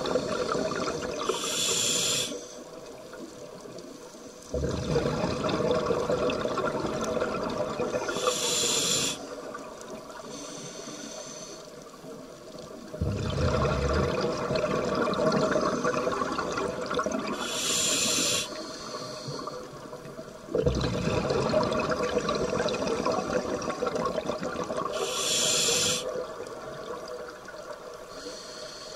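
Scuba diver's breathing through a regulator, heard underwater: slow breath cycles, about four in all, each a long rush of bubbling noise with a brief hiss near its end, separated by quieter pauses.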